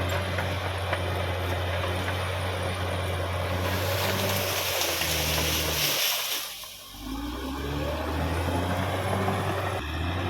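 Caterpillar D6R XL bulldozer's diesel engine running steadily under work, with a hiss a few seconds in that lasts about two seconds. The engine note dips briefly past the middle and then picks up again.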